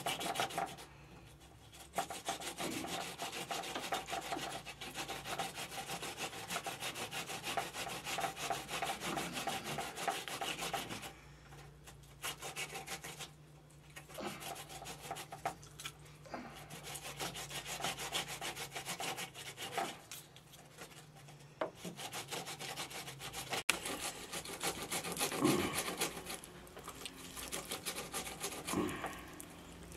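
A knife blade scraping scales off a fish in quick, repeated strokes, with a few short pauses.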